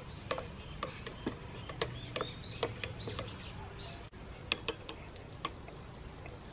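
Wooden spatula scraping and knocking against a frying pan in irregular clicks as food is stirred and scooped out, with birds chirping now and then in the background.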